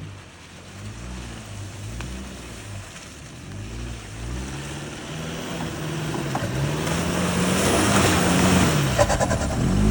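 Jeep Liberty engine revving up and down again and again as the SUV claws up a muddy slope, growing louder as it comes closer. Near the end a rushing noise of spinning tyres churning mud builds up, with a few sharp knocks.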